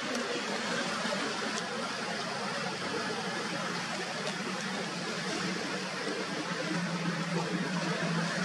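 Steady rushing noise of water and wind, with a low boat-engine hum that grows stronger near the end.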